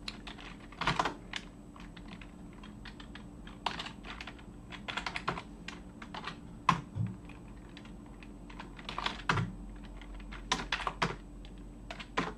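Typing on a computer keyboard: keystrokes come in short, irregular bursts with pauses in between as shell commands are entered.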